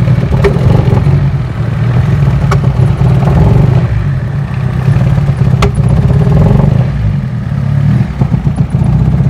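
Honda Civic four-cylinder petrol engine idling roughly and unevenly, misfiring because its damaged cylinder head is losing compression. Three sharp clicks are heard along the way.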